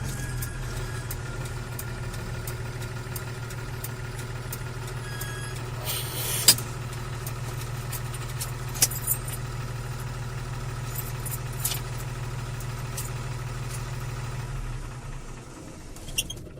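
Ten-wheeler truck's diesel engine idling steadily, with a few sharp clicks, the loudest about six seconds in. The engine sound fades away near the end.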